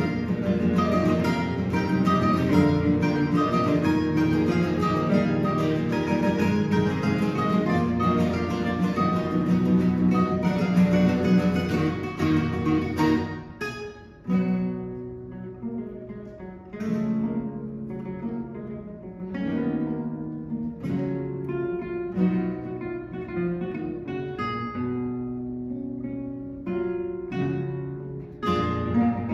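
A quartet of classical guitars playing together: a dense, loud passage that drops off suddenly about halfway through into a quieter, sparser stretch of separate plucked notes, then swells back to full ensemble near the end.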